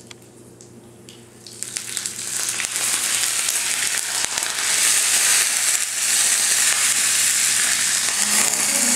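Curry leaves sizzling in hot oil for the tempering (tadka) of mustard seeds, fenugreek seeds and a red chili. The sizzle starts about a second and a half in, builds quickly and stays loud.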